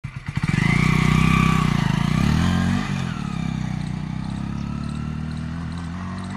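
Hero Honda Splendor motorcycle's small single-cylinder engine revving hard as the bike pulls away. The pitch climbs for the first two seconds, drops with a gear change near three seconds, then runs on steadily and grows quieter as the bike rides off.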